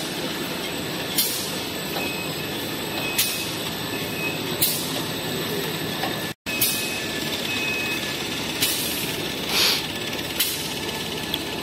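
Roll-packing machinery and belt conveyors of a toilet-paper packing line running, a steady mechanical noise broken by sharp clacks every second or two. A short hiss comes near the end, and the sound cuts out for an instant about six seconds in.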